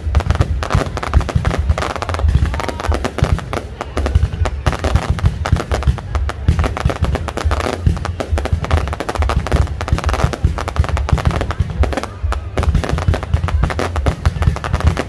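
Fireworks display in full barrage: rapid, dense bangs and crackling overlapping with deep booms, with no let-up.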